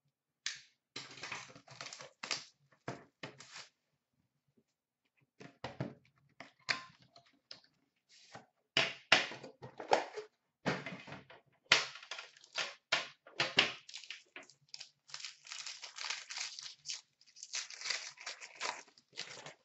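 Tearing and crinkling of card packaging being opened by hand: an Upper Deck Premier hockey box and the wrapped pack inside it. It comes in irregular bursts with a lull of about a second and a half around four seconds in.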